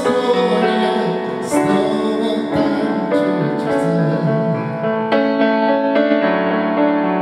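A grand piano played live, chords and melody ringing on, with a voice singing along into a microphone.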